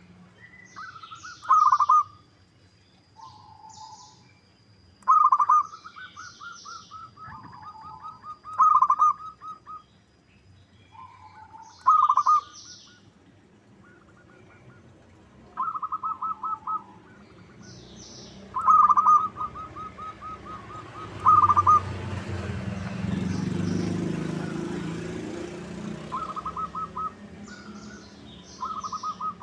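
Zebra doves cooing: short rolling trilled phrases repeated every three to four seconds, with faint high chirps from a smaller bird. A low rumble swells up in the second half and fades again.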